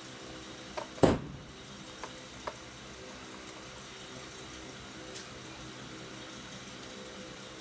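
Small metal hand-work on a workbench: a screwdriver and loose screws and washers clicking and knocking, with one sharp knock about a second in and a few lighter clicks after. A steady low hum and hiss sits underneath.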